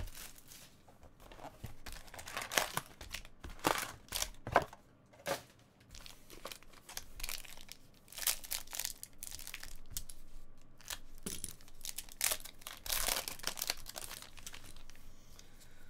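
Foil wrapper of a Panini Contenders baseball card pack crinkling and tearing as it is ripped open by hand, in irregular runs of crackly rustling.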